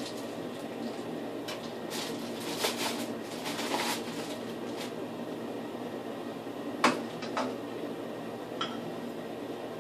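Small objects being handled and set down on a bathroom counter: rustling clicks about two to four seconds in, then a sharp knock about seven seconds in and a lighter tap after it, over a steady background hum.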